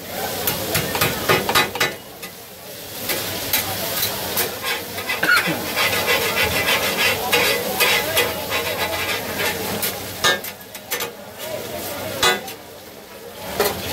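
Metal spatulas chopping, turning and scraping marinated chicken on a large flat griddle (tawa), a fast clatter of metal strikes over the sizzle of the frying meat. The clatter stops for a moment about two seconds in and again near the end.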